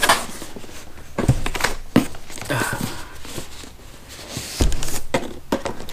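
A cardboard product box being opened and handled: rustling and scraping with scattered clicks and knocks, and a dull thump about two-thirds of the way in.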